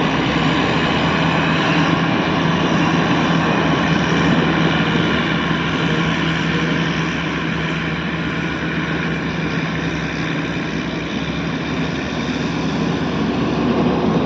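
Caterpillar 120 motor grader's diesel engine running steadily with a constant drone, easing a little in the middle and picking up again near the end.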